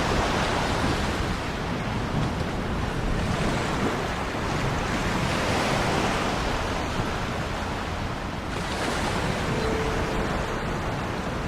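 Sea surf: waves breaking and washing onto the shore in a continuous rush that swells every two to three seconds, with wind on the microphone.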